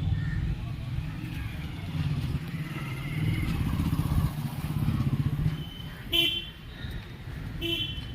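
A motor vehicle engine running, rising and falling, with two short, sharp calls near the end.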